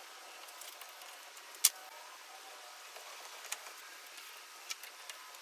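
Faint hiss with a few light metallic clicks, one sharper click about a second and a half in: hand tools being handled at a metal lathe during hand tapping.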